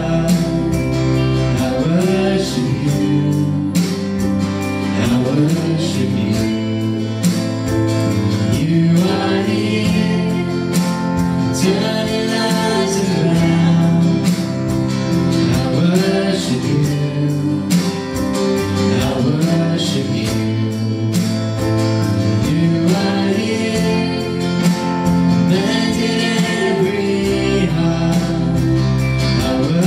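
Worship music: singing over guitar and band accompaniment.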